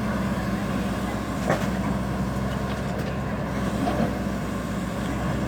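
Tata Hitachi EX200 excavator's diesel engine running steadily, with two short knocks, one about a second and a half in and one near four seconds.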